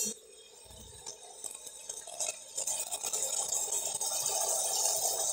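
Metal spatula stirring and scraping cabbage, potato and peas frying in a kadai, opening with one sharp metal clink against the pan. The stirring grows louder and steady about two and a half seconds in.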